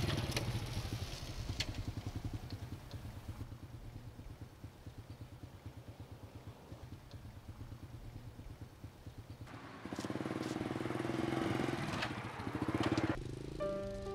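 Small underbone motorcycle engine idling with a steady, even putter. About nine and a half seconds in it revs louder as the bike pulls away. Soft piano music comes in near the end.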